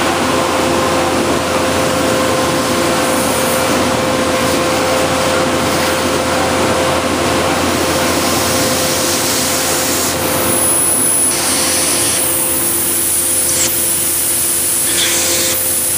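Sewer vacuum truck running with its suction hose working at a sludge-filled floor drain pit: a loud, steady noise with a steady two-note hum. From about ten seconds in, short bursts of higher hiss come and go as the hose nozzle sucks at the pit.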